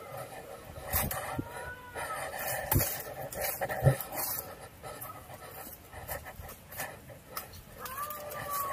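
Hard breathing close to the microphone from someone scrambling over rocks, with scattered knocks and scrapes from footsteps and handling. A faint, drawn-out call that rises and then falls begins near the end.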